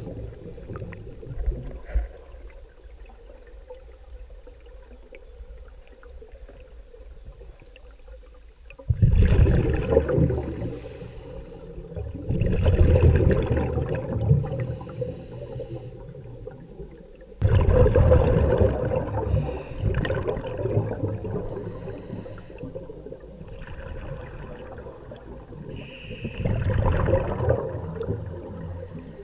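Scuba diver breathing through a regulator underwater: exhaled air bubbling out in several long, noisy bursts, with quieter stretches between them.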